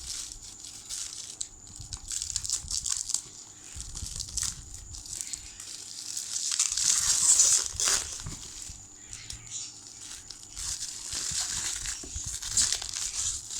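Packaging crinkling and rustling as it is handled and unwrapped, in irregular bursts, loudest about seven seconds in.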